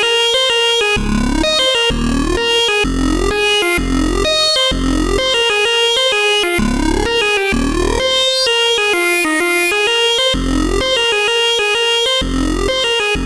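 Electronic background music: synthesizer chords over a bass line that pulses with a steady beat.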